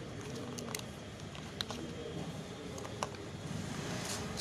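A few sharp light clicks and taps of a cardboard phone box and its coiled charging cable being handled and packed back in, over a steady low background.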